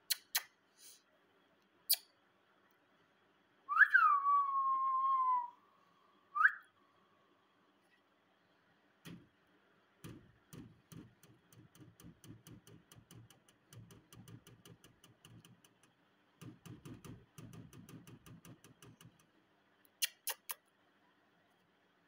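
A whistle about four seconds in that leaps up and slides down into a held note, followed by a short rising note. Later comes a long stretch of rapid, irregular tapping and rattling, with a few sharp clicks at the start and near the end.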